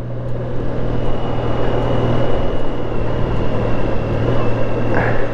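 A motorcycle running at steady road speed, its engine hum mixed with wind and road noise on the rider's microphone, with a faint steady high whine from about a second in.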